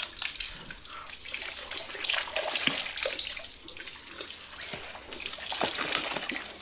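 Ice being broken and bitten: irregular wet crackling and crunching, with liquid splashing and trickling.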